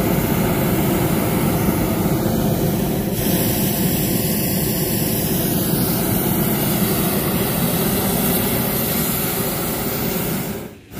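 Hot-air balloon propane burner firing in a long, steady roar, dipping briefly near the end.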